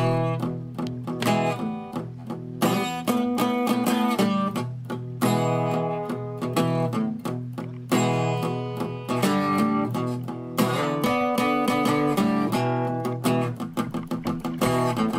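Background music: acoustic guitar in a folk style, with plucked and strummed notes.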